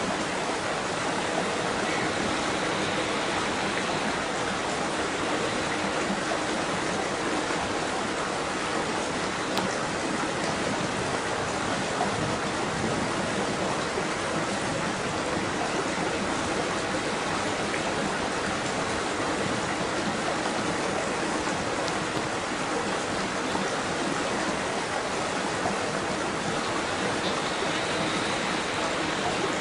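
Steady rushing of flowing water, like a stream or small waterfall, an even, unbroken hiss with no pauses.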